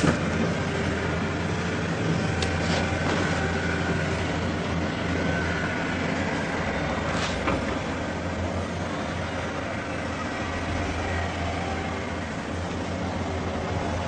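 A steady low rumbling drone, heaviest in the deep bass, with a few faint clicks about two and a half and seven seconds in. It is the kind of sound that circulates as a mysterious 'sky trumpet' noise heard over cities.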